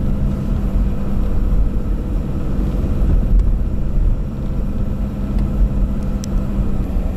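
Car driving along a road, heard from inside the cabin: a steady low rumble of engine and tyres with a constant hum.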